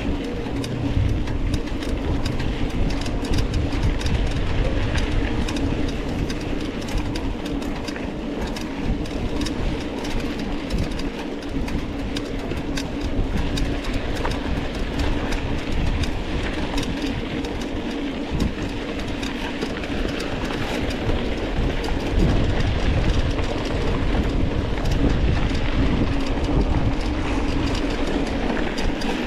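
Mountain bike ridden over rough dirt trail, heard from a camera mounted on the rider or bike: a continuous clatter of dense small rattles over a low rolling rumble.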